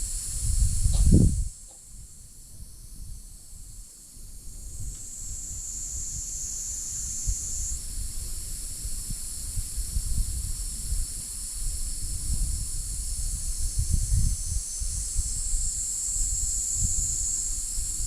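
A steady high-pitched insect chorus shrilling, swelling and fading twice, over low gusts of wind buffeting the microphone, strongest about a second in.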